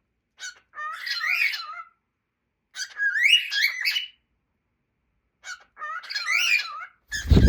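Cockatiels whistling and chattering in three warbling phrases of about a second each, with short chirps before them. A loud thump near the end.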